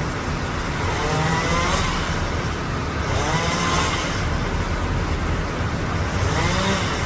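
A motor revs up three times, each time a rising whine, over a steady low engine rumble.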